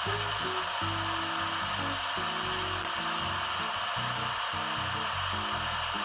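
Background music: a low melody of held notes that change every half-second or so, over a steady high tone.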